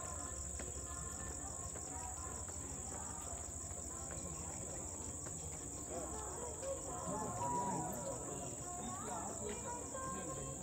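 Crickets trilling in a steady, high continuous shrill. Faint music and voices run underneath and swell slightly past the middle.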